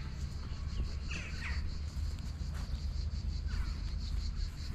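Crows cawing: harsh, falling calls, two close together about a second in and another near the end, over a steady high pulsing buzz and a low rumble.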